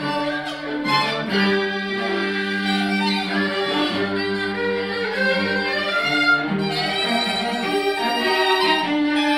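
Live chamber ensemble of bowed strings (violins, viola and cello) playing continuously, with held low notes under a moving upper line.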